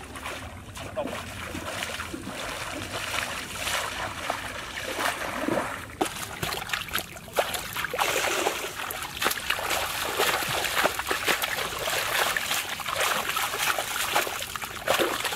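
Shallow river water splashing and sloshing, first from wading steps, then from hands groping and thrashing in the water under the bank roots while hand-fishing. The splashing grows louder and busier about halfway through.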